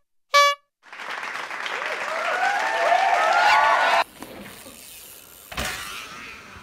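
One short air-horn honk, then a crowd cheering and screaming that swells for about three seconds and cuts off suddenly. Quieter background follows, with a single thump near the end.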